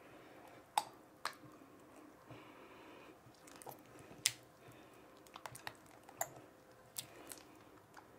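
Wooden spatula stirring sticky, partly activated slime in a glass bowl as borax activator is mixed in: scattered wet clicks and squelches at irregular intervals, with two sharper pops about a second in and near the middle.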